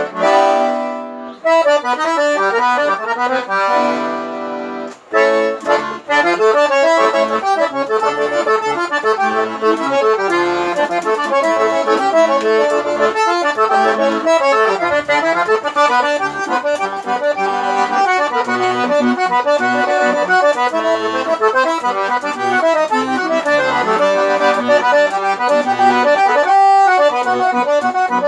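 Accordion (sanfona) playing a lively tune. It opens with a couple of held chords, then goes into a fast run of melody over short, pulsing bass notes, with a brief break near the end.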